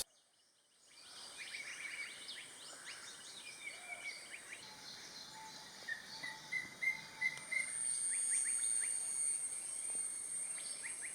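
Tropical forest ambience: many birds calling with short chirps, including a run of about five short even notes a little past halfway, over a steady high insect drone that grows louder in the second half.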